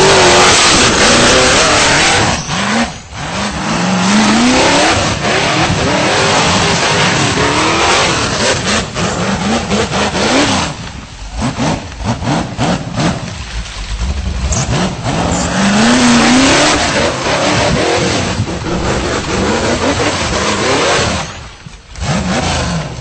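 V8 engine of a tube-frame rock-bouncer buggy revving hard under load as it climbs. The throttle is opened in repeated surges with rising pitch, and it briefly lifts about three seconds in, twice in the middle and again near the end.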